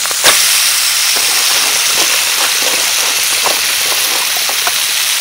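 Live crabs sizzling in a hot wok over a wood fire: a steady hiss with scattered crackles and clicks, and one sharp crack about a quarter second in.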